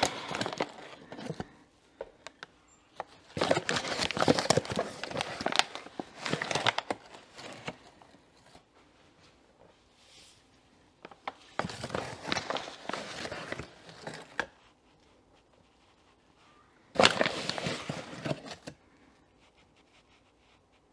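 A measuring cup scooping bread flour from a paper flour bag and tipping it into a glass bowl: papery rustling and gritty scraping in four bursts, each one to three seconds long, with short pauses between.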